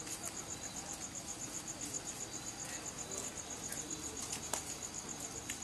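Crickets chirping at night: a steady, rapid, high-pitched pulsing trill, with a sharp click about four and a half seconds in.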